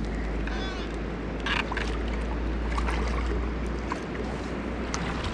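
River water rushing and lapping against the rocky bank, with wind rumbling on the microphone. A short sharp sound comes about a second and a half in.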